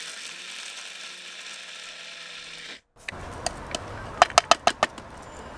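Small electric blade spice grinder running steadily as it grinds whole spices, cutting off abruptly about three seconds in. Then a run of sharp taps and clicks as the plastic grinder is knocked and the ground spice is shaken out of it.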